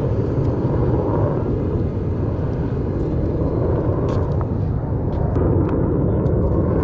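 Wind rumbling steadily on a helmet-mounted GoPro microphone as the wearer moves about, with a few faint ticks near the middle.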